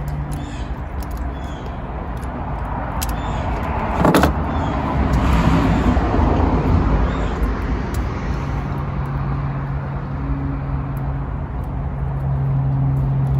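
Motor vehicle sound: a swell of engine and road noise, then a steady low engine hum from about two-thirds of the way in, with one sharp knock about four seconds in.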